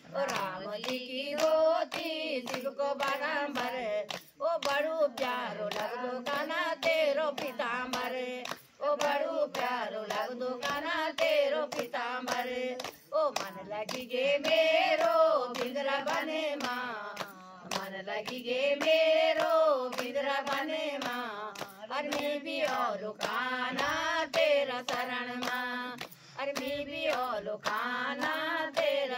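A group of women singing a Hindu devotional kirtan bhajan in unison, clapping their hands in a steady rhythm.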